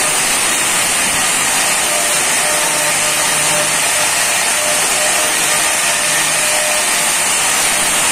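Handheld electric angle grinder running steadily with a high whine as its disc grinds and finishes the edge of a granite strip.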